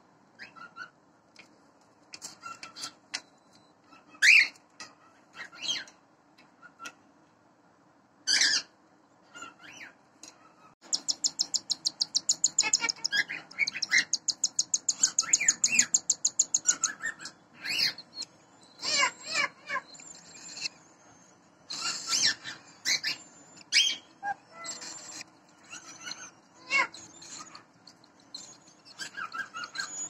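Cockatiel chicks begging in the nest: scattered squeaky chirps, and about a third of the way in a rapid, even string of pulsed begging calls lasting about six seconds, the sound chicks make while a parent feeds them.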